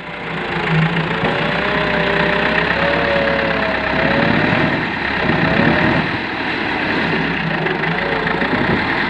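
Massey Ferguson MF 265 tractor's three-cylinder diesel engine running hard under load in soft, ploughed soil, its pitch wavering up and down as the load changes.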